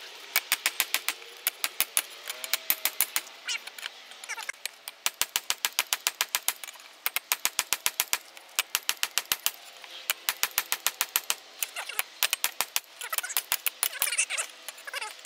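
Hand hammer striking a red-hot piece of car leaf spring on a small steel block anvil. It is forging blows in quick runs of about five a second, with short pauses between runs.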